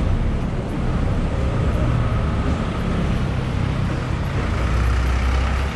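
City street traffic on a wet road: car and truck engines running close by in a steady low rumble.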